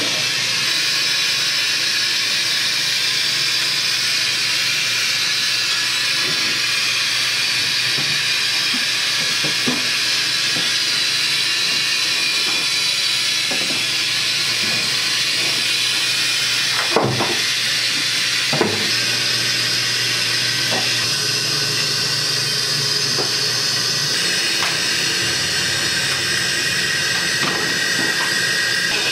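Steady hiss of steam escaping from the dumpling and steamed-bun steamers, with a couple of light knocks a little past halfway.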